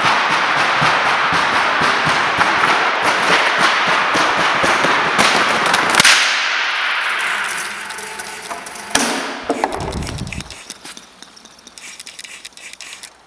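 A long row of wooden Euro pallets toppling like dominoes onto a concrete floor: a dense, rapid clatter of wood knocking on wood that echoes through a large hall and ends in one loud crack about six seconds in. The echo then dies away, and a single sharp knock with a low thud follows about nine seconds in.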